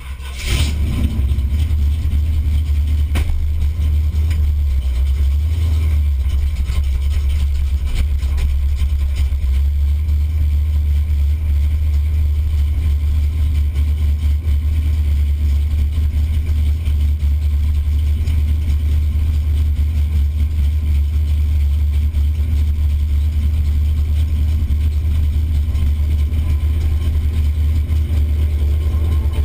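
A 455 cubic-inch Pontiac V8 in a Buick station wagon fires up about half a second in, then idles with a steady low rumble, heard from inside the cabin.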